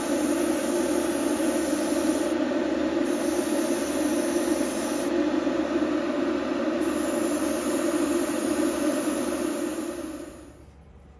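Steady machine noise that stops near the end.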